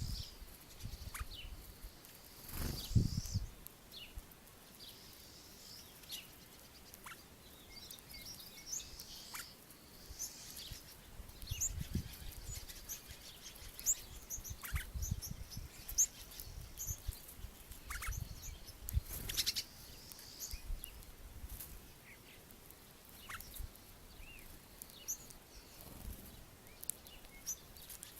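Small birds at a feeder chirping: many short, high call notes scattered irregularly throughout, over intermittent low rumbles.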